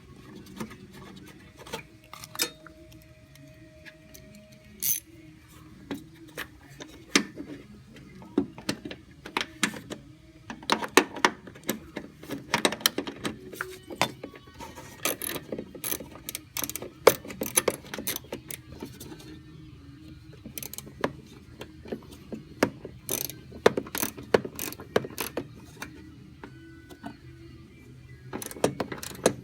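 Hand-tool work in a truck's engine bay: irregular metallic clicks and clinks of a wrench turning a bolt to mount a headlight relay, with a low steady hum underneath.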